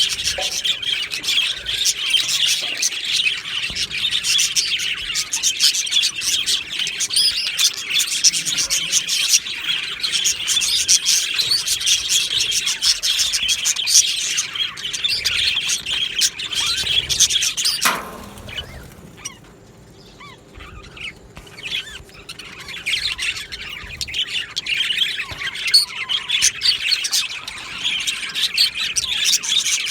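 A flock of budgerigars chirping and warbling, a dense, continuous chatter. About eighteen seconds in it drops away suddenly for a few seconds, then builds back up.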